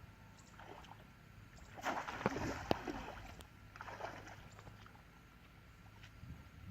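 Water splashing and sloshing in two bursts, the first with a couple of sharp knocks, over a low steady hum.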